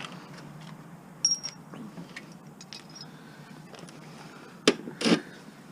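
Light metallic clicks and clinks of hand tools and small metal parts being handled. One clink about a second in rings briefly and high, and two sharper clicks come near the end.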